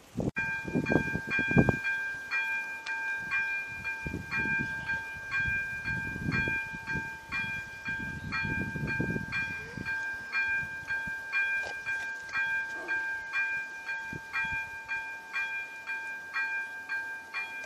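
Electronic bell of an AŽD 97 level-crossing warning signal switching on just after the start and ringing a steady repeated strike about twice a second, warning that a train is approaching.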